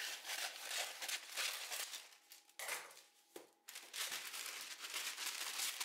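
A sheet of baking parchment crinkling and rustling as it is handled and cut to size with scissors, with a short lull about three seconds in.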